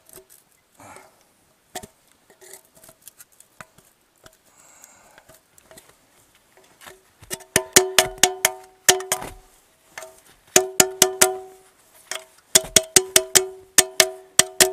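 A knife blade knocking and prying at a rusty WWII-era metal tube container to force its flattened lid, with light scraping and ticks at first. From about seven seconds in come three runs of rapid metal-on-metal strikes, several a second, each one ringing with a clear, bell-like tone.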